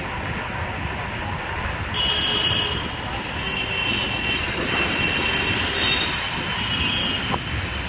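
Steady roar of heavy rain and road noise heard from a moving motorbike, with brief high tones cutting in over it several times.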